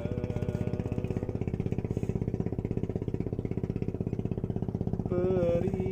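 A man singing a Sundanese love song karaoke-style, coming in about five seconds in with a wavering note that he then holds. Under it runs a steady, rapid throbbing like a small engine.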